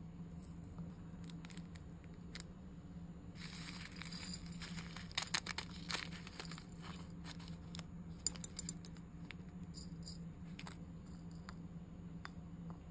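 A small plastic bag crinkling as it is opened, then tiny rhinestones, pearl beads and sequins clicking and pattering onto a plastic dish. The loudest part is a quick cluster of sharp clicks about eight seconds in, with scattered light taps from handling.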